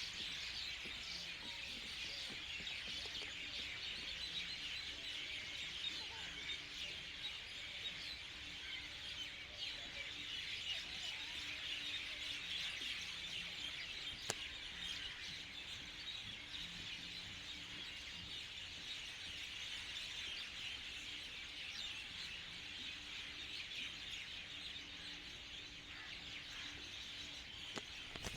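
Many small birds chirping at once, a dense, steady chorus of overlapping short calls.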